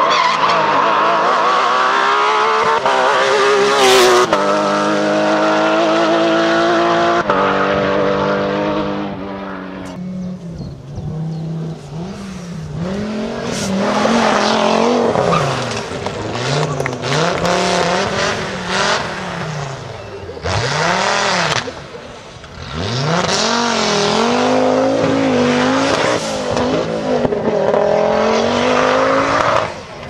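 Rally cars at full throttle: a Porsche 911 GT3's flat-six pulls hard through two upshifts, about four and seven seconds in. After that an Audi quattro's turbocharged five-cylinder revs rise and fall again and again as it is braked and accelerated through the corners.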